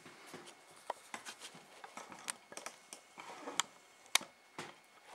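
Camcorder being handled and zoomed in: a faint scatter of light, irregular clicks and ticks.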